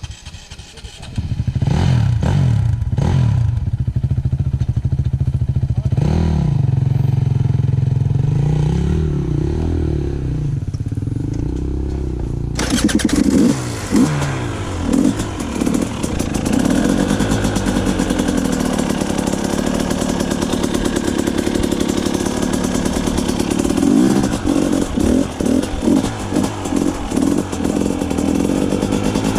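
Dirt bike engines revving up and down as a rider works up a steep, rocky climb. About twelve seconds in, a louder, raspier engine sound cuts in and carries on.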